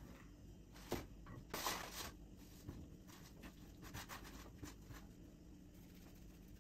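Soft rubbing and rustling of hands working dough on a floured pastry sheet, with a light knock about a second in and a louder rustle of the sheet around two seconds.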